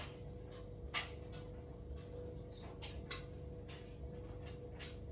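Kitchen utensils and containers being handled while water is measured out: scattered light clicks and taps, with two louder knocks about one and three seconds in, over a faint steady hum.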